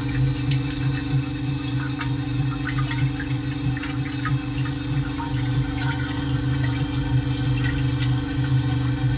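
Geared electric stirrer motor humming steadily while a 25 cm propeller paddle churns a still pot full of water, with continuous swirling, sloshing and small splashes.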